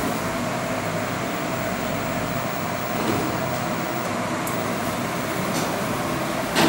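Passenger lift arriving, its stainless-steel doors sliding open over a steady mechanical hum. A sharp click comes near the end.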